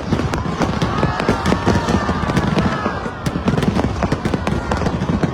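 Aerial fireworks going off in a dense barrage: rapid, overlapping sharp cracks and crackles over a continuous low rumble of booming bursts.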